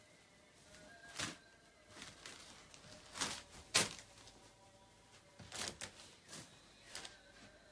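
Fabric and plastic rustling as silk dresses are handled and laid on a pile: a series of short crackly bursts, the loudest a little under four seconds in.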